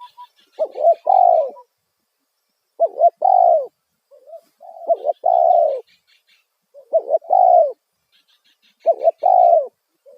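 Spotted dove (tekukur) calling loudly: five coo phrases about two seconds apart, each a couple of short notes followed by a longer, falling coo.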